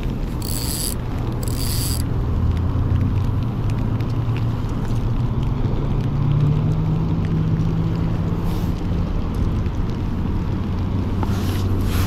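Steady low engine drone with wind on the microphone, its pitch rising slightly about halfway through. Three short high-pitched rasping bursts come in the first two seconds.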